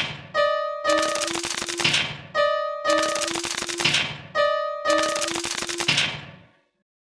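Novelty cartoon level-crossing warning sound effect: rapid rattling like machine-gun fire, broken off and restarted several times, with a steady ringing tone between bursts. It fades away shortly before the end.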